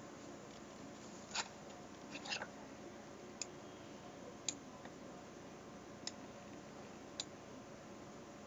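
Faint steady room hum with about seven short, sharp clicks at irregular intervals roughly a second apart, the loudest about a second and a half in and again near the middle.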